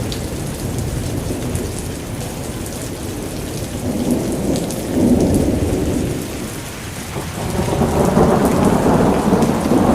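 Rain falling steadily, with rumbles of thunder that swell about five seconds in and again from about eight seconds in.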